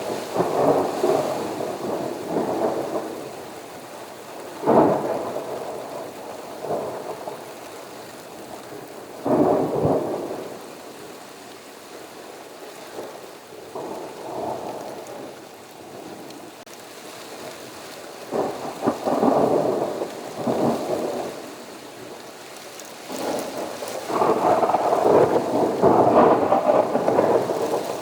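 Thunder over steady rain: a sharp crack about five seconds in and another near nine seconds, each rolling off into rumble, more rumbling a little past the middle, and a long, loud rumble near the end.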